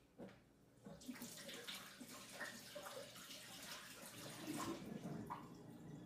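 Kitchen sink tap running as hands are washed under it, heard faintly from across the room. The water comes on about a second in and stops near the end.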